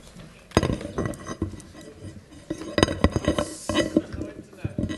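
Irregular knocks and clinks of a small Arduino robot and its USB cable being handled and set down at a lectern, a dozen or so sharp hits with no steady rhythm.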